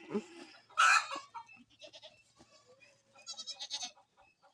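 Goats bleating: a loud, rough sound about a second in, then a higher, wavering bleat a little after three seconds.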